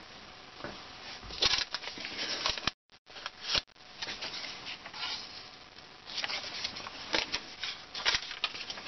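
Close handling noise: irregular rustling with light taps and scrapes as hands work around the camera mount and metal plate of the machine. The sound drops out for a moment about three seconds in.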